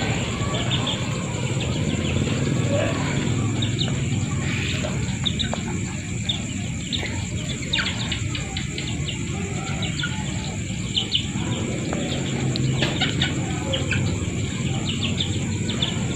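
Free-range chickens making short, high calls in scattered clusters while they feed, over the steady high drone of night insects.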